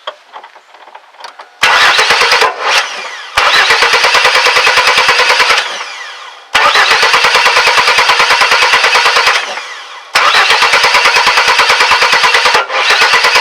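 A 2001 Chevy S10's 4.3-litre V6 cranking on the starter with a fast, even pulsing, in five separate tries, the first short and the rest a few seconds each, without catching. It is a no-start caused by a distributor cap shorting out inside: the spark jumps off the rotor button instead of reaching the plug wires.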